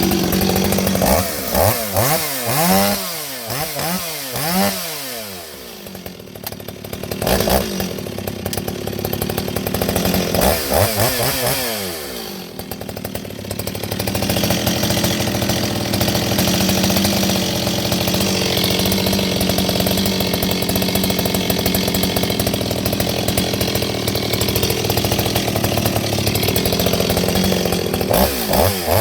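Stihl 026 two-stroke chainsaw, with an aftermarket muffler whose baffles have been removed, running after a scored-piston repair. It is revved up and down in quick blips several times, settles briefly, and is then held steadily at high revs for about fifteen seconds before more blips near the end.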